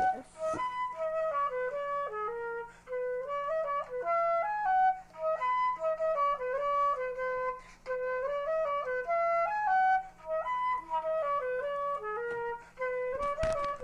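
Intro music: a flute playing a lilting melody of short notes that step up and down.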